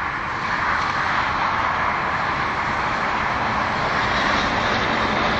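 Steady noise of heavy road traffic, a continuous din of many vehicles with no single one standing out, building slightly over the first second.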